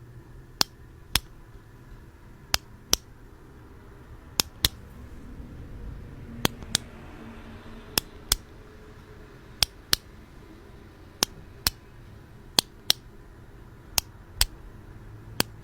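Sharp clicks in pairs, two clicks a fraction of a second apart, with a new pair about every second and a half.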